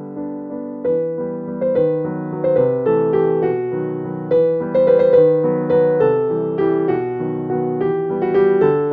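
Background piano music: single notes and chords struck one after another in a steady melody.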